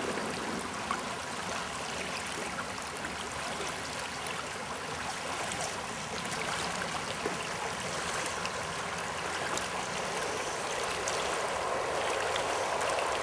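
Shallow, fast-flowing river riffle rushing steadily.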